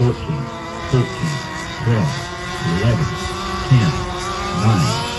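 Gas-engined radio-controlled race boats running flat out, their engines a steady high whine that climbs slowly in pitch. A low thump repeats about once a second underneath.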